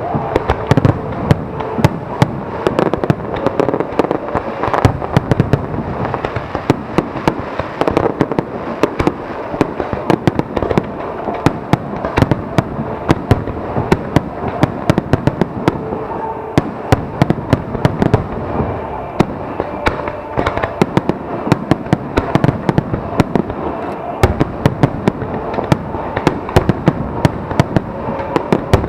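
Aerial fireworks display in a dense, continuous barrage: many sharp bangs and cracks each second over a steady din of bursting shells.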